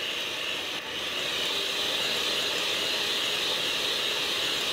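Electric hand mixer running steadily as its beaters whisk egg yolks with sugar in a glass bowl, with a brief dip about a second in.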